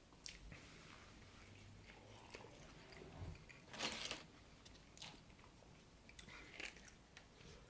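A person chewing and biting food close to the microphone, with a few short crunchy sounds, the loudest about four seconds in.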